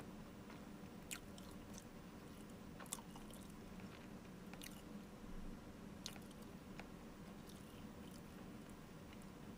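Faint room hum with sharp little clicks every second or two, about five in all.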